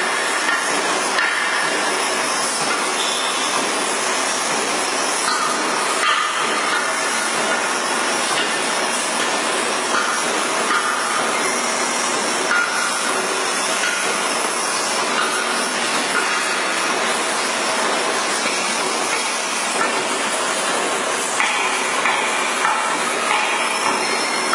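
Large heavy-duty lathe turning a big steel cylinder: steady, loud machining noise from the cutting and the machine, with a few faint knocks.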